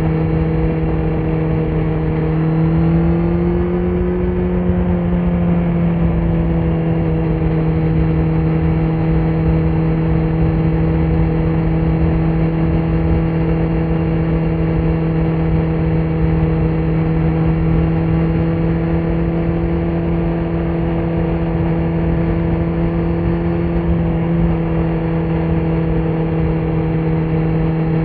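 2018 Kawasaki Z900's inline-four engine running through a Leo Vince muffler with the dB killer removed, holding steady revs while riding. The pitch rises slightly about three seconds in and settles back a couple of seconds later.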